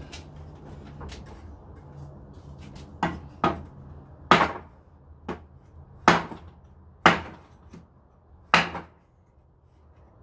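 Hammer striking a wooden fence board to knock it loose from its nails: about seven sharp blows, irregularly spaced, starting about three seconds in, each ringing briefly.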